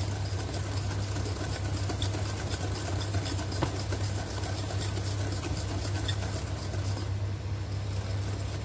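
Wire whisk beating sugar and egg in a glass bowl, a rapid run of small scrapes and clinks of metal on glass, over a steady low hum.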